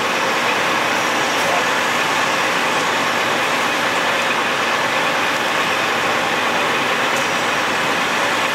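Steady noise of a vehicle engine running, with faint voices mixed in.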